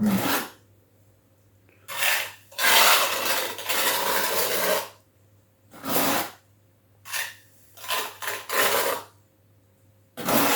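Tiling work scraping and rubbing over tile and thinset mortar: a string of short rough scrapes, with one longer scrape lasting about two seconds near the start.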